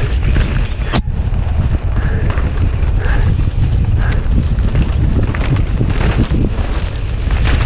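Heavy wind buffeting on the microphone of a mountain bike racing downhill, with the bike's clatter and rattles over rough ground and a sharp knock about a second in.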